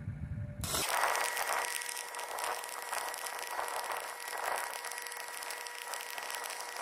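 Stick-welding arc on a 3/32-inch electrode, laying the cap pass on pipe: the arc strikes about half a second in, then crackles and hisses steadily with a faint steady whine underneath.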